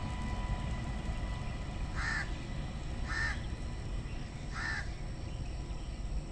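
A crow cawing three times, a little over a second apart, starting about two seconds in, over a low steady rumble.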